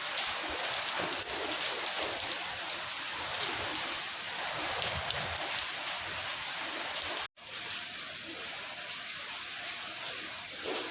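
Steady rain falling, an even hiss of drops pattering on surfaces. The sound cuts out for an instant about seven seconds in, then carries on a little quieter.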